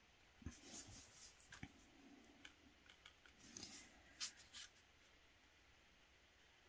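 Drawing pen tip tapping and scratching on watercolour paper as a dotted border is inked: faint light ticks and short scrapes, stopping about five seconds in.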